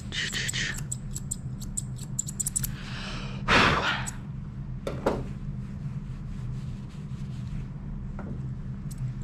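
Grooming shears snipping through a dog's coat, a run of quick sharp clicks over the first few seconds. About three and a half seconds in comes a short, loud rustling burst, the loudest sound, and a smaller one about a second later, over a steady low hum.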